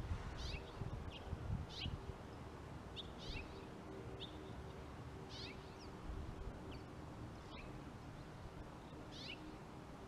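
Small birds giving short, harsh chirps about once a second, over a faint low rumble.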